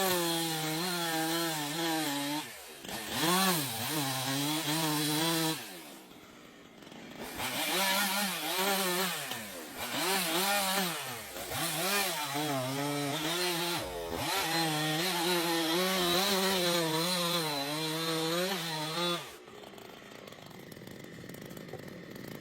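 Two-stroke chainsaw cutting wood at high revs, its pitch wavering up and down as the chain bites. It eases off briefly a few times and drops back to a lower, quieter running a few seconds before the end.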